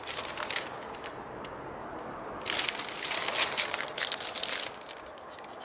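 Thin paper instruction leaflet rustling and crinkling as it is unfolded and leafed through by hand. It gets louder for about two seconds around the middle.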